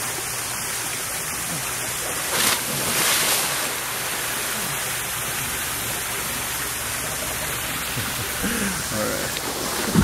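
A person splashing into a pool, with a short splash about two and a half seconds in and a bigger one just after, over a steady rushing hiss of water.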